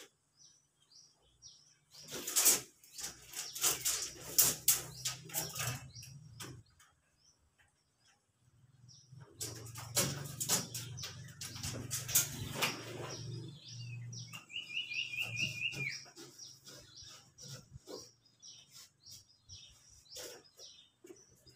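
Work noise from fitting ceiling boards to a steel frame: two stretches of a low hum with clatter and knocks. Small birds chirp throughout, with a quick run of about six chirps about two-thirds of the way in.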